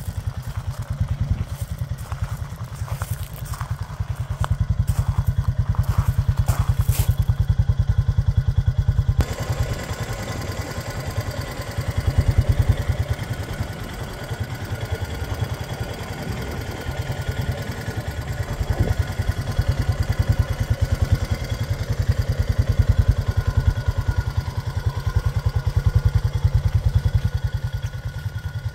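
Honda TRX500FA ATV's single-cylinder engine idling steadily with an even, low exhaust pulse, swelling louder for a few seconds twice.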